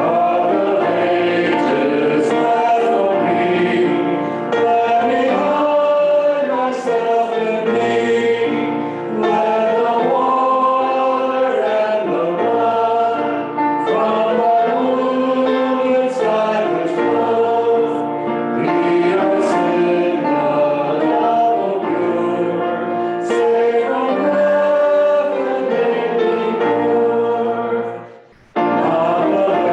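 A church congregation singing a hymn with keyboard accompaniment, in long held phrases. There is a short break near the end before the next verse begins.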